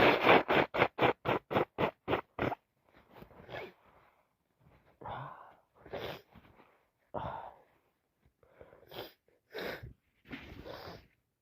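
Congested nose of a person with a cold: a rapid run of about a dozen short, loud nasal bursts in the first two and a half seconds, then separate wet sniffs about a second apart.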